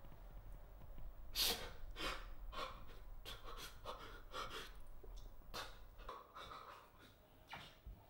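A man panting heavily in ragged, irregular breaths, one to two a second, that grow fainter in the last couple of seconds.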